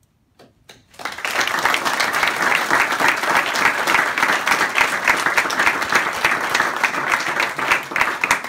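Audience applauding: a few scattered claps at first, then dense, steady applause from about a second in.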